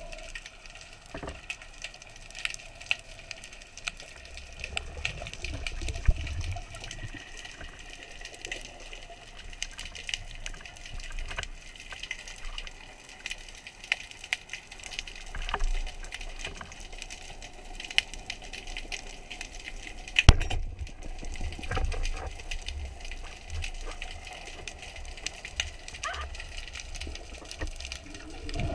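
Underwater ambience picked up by a diver's camera below the surface: a steady watery hiss with scattered sharp clicks and crackles and a few low thumps.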